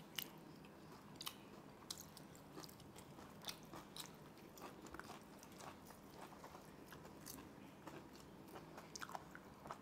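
Faint close-up chewing of crispy fried food, with scattered sharp crunches.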